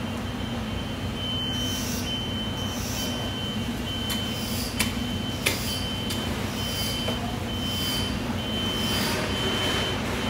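Steady low machinery hum with a thin high beeping tone that keeps breaking off, and a soft hiss pulsing a little over once a second. Two sharp knocks come about halfway through.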